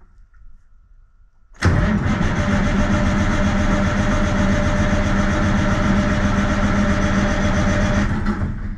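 Heavy truck's Cummins diesel engine cranking on the starter motor for about six and a half seconds without firing, a steady even churn that starts suddenly and stops. The engine will not start after repairs to the ECM ground and a pressure sensor's wiring.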